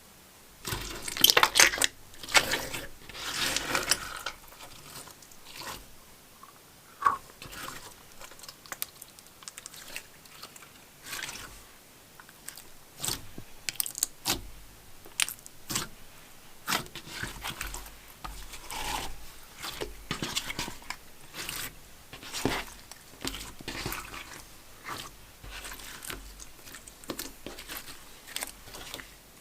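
Slime being squished and worked by hand: irregular sticky clicks and crackles, loudest and densest about one to four seconds in.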